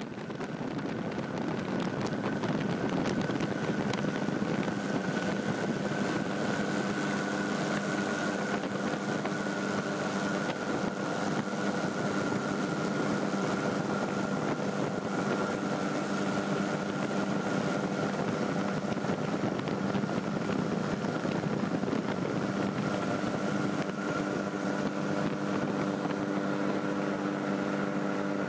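Microlight aircraft's engine and propeller droning steadily in cruise, heard from the cockpit with air rushing past. It fades up over the first couple of seconds, then holds an even pitch.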